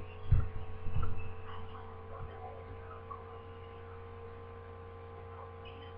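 Steady low electrical hum, with a few short soft clicks in the first second.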